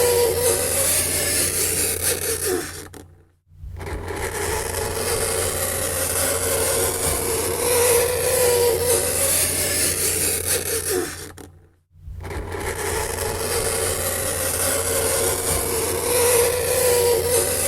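Fingernails scraping across a chalkboard, a continuous scratching with a high squealing tone. It fades out and starts again twice, about three and a half and twelve seconds in.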